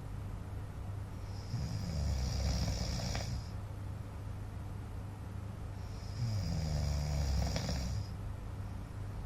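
A man snoring in his sleep: two long snores about four and a half seconds apart, each a low rattling rumble with a breathy hiss on top.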